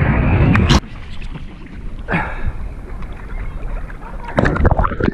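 A diver hitting the water with a splash, the loud rush cutting off abruptly about a second in; then water sloshing, with a burst of sharp splashes near the end.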